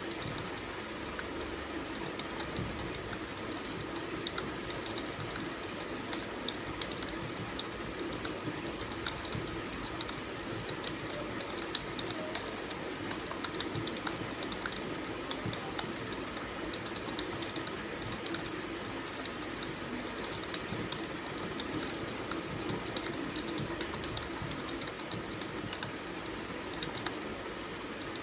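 Fast typing on a computer keyboard: a rapid, unbroken stream of keystrokes during a speed test.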